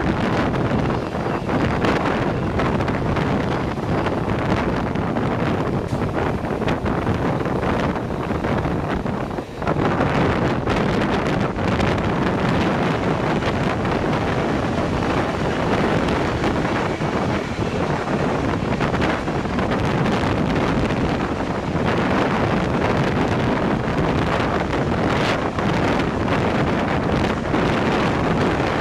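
Wind buffeting the microphone: a loud, steady rushing noise with no distinct tones, dropping away briefly about nine and a half seconds in.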